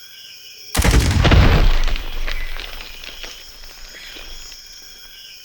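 A sudden heavy boom about a second in, with a deep low end and scattered crackles, dying away over the next couple of seconds. A faint high ringing tone lingers after it.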